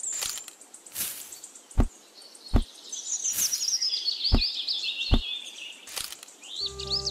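Small songbirds chirping and whistling in quick rising and falling notes, over a row of about eight sharp taps and soft thuds under a second apart as small props are handled and set down; the loudest thuds come about two seconds in.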